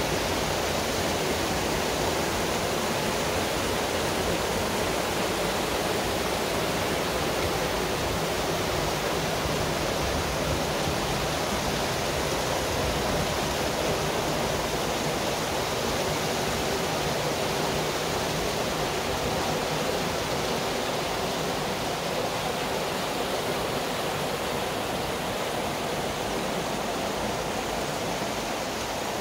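Canal lock filling: water pouring through the open paddles of the top gates and churning into the broad lock chamber, a steady rush that eases slightly near the end.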